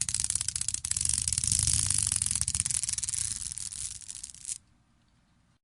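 A string of beads being pulled free: a fast, dense rattle of many tiny clicks that thins out and softens, then stops abruptly about four and a half seconds in.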